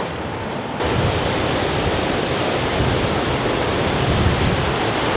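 Ocean surf breaking on a rocky shore, a steady wash of noise with strong wind rumbling on the microphone; it gets louder and fuller about a second in.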